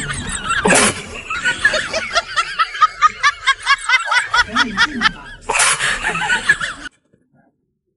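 Rapid snickering laughter, quick high chuckles about five a second, mixed with two loud noisy slurps of leafy greens, one about a second in and one near six seconds. The sound cuts off abruptly about seven seconds in.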